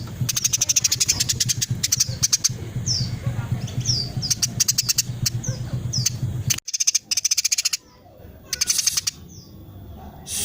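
Female Eurasian tree sparrow calling continuously in fast, dense runs of short chattering notes mixed with downward-sliding chirps. A steady low hum lies underneath; the calling breaks off briefly about two-thirds through, then comes back in two short bursts.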